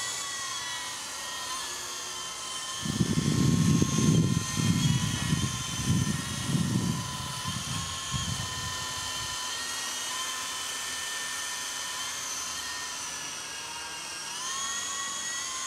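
Radio-controlled model helicopter flying, its motor and rotors giving a steady high-pitched whine that rises in pitch near the end. From about three to nine seconds in a louder, low rumbling noise covers it.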